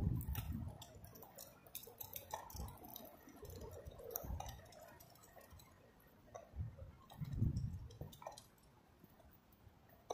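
Thin stiletto heels of ballet boots ticking on pavement, a string of light clicks that thin out after about five seconds. A couple of dull low thumps come about seven seconds in.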